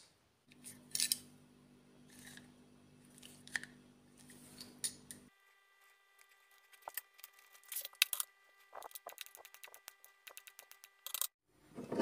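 A few light knocks and handling sounds, then, in the second half, a quick run of sharp clicks and taps as a knife cuts a block of Vinamold moulding compound into pieces on a wooden workbench.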